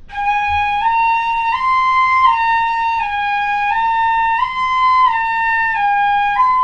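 Pífano in C, a Brazilian transverse fife, playing a slow stepwise exercise in its second octave: G, A, B, A, G, A, B, A, G, each note held about two-thirds of a second. Near the end it jumps straight from G up to B.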